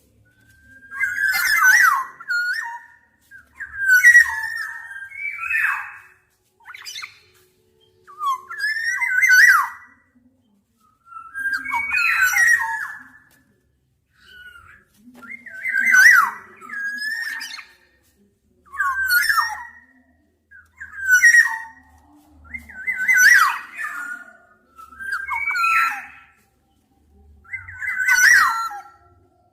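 Black-naped oriole singing: about a dozen short fluty whistled phrases with quick sweeps in pitch, repeated every two to three seconds.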